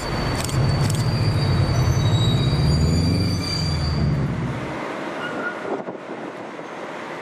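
SU46 diesel locomotive moving its train of passenger coaches: a loud low engine note, a few clicks from the wheels, and a thin high squeal of wheels on the rails. About five seconds in the engine note drops away, leaving a quieter, even rumble.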